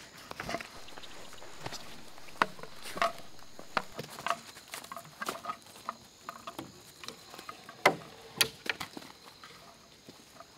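Light footsteps of a person and a dog on forest dirt and leaf litter, with scattered sharp clicks and knocks from handling a wooden stick gate. A faint high steady tone runs underneath until about two-thirds through.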